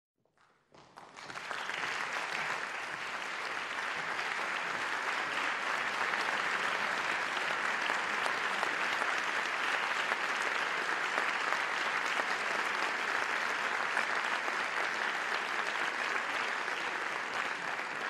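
Audience applauding, a dense, steady clapping that starts about a second in and holds evenly throughout.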